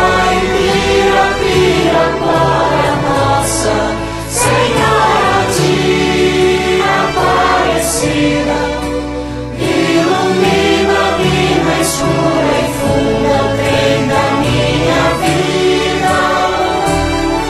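A song with a choir singing over an instrumental backing, with short bright accents every couple of seconds.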